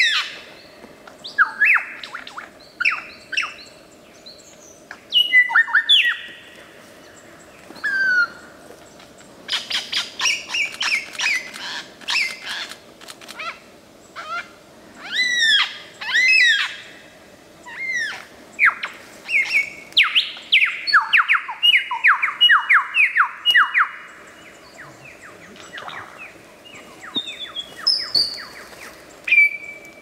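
Superb lyrebird singing a long, varied string of mimicked calls: loud whistled sweeps, short clicky notes, and about two-thirds of the way in a quick run of falling whistles.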